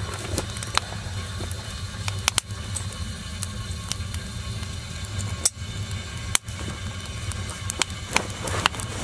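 Firewood burning well in a small tent wood stove, crackling with sharp pops scattered irregularly through, over a steady low rumble.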